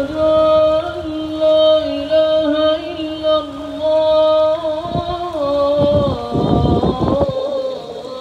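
A single voice chanting long, drawn-out notes that waver slightly and bend to a new pitch about six seconds in. Low rumbles sound over it about five to seven seconds in.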